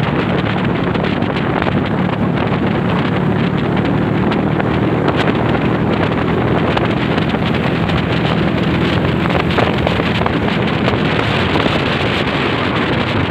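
Honda CB motorcycle engine running steadily while riding, with heavy wind noise on the microphone.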